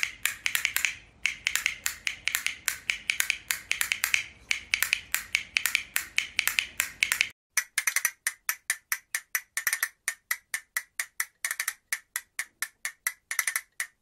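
Castanets clacking in quick runs of sharp clicks, several a second, some bunched into short rolls. About seven seconds in, a faint background hiss stops abruptly, and the clicks carry on at a steadier, more even pace.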